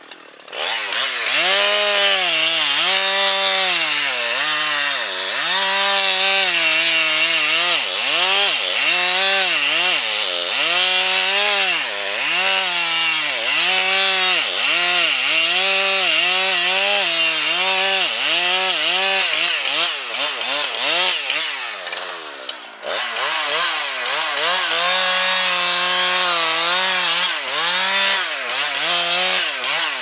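Husqvarna two-stroke chainsaw cutting into a large tree trunk. The engine pitch sags and recovers over and over as the chain loads up in the wood, and it eases off briefly about three-quarters through.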